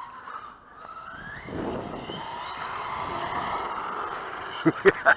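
Electric motor of an RC monster truck whining as it speeds up about a second in, then running steadily, with a few short knocks near the end.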